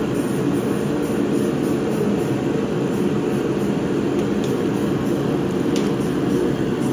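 Propane forced-air (torpedo) heater running with a steady low roar of fan and burner. Two faint clicks come in the second half.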